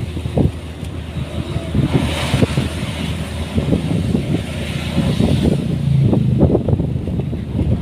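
A motor vehicle's engine running steadily, with low buffeting and rumble that swell and fade.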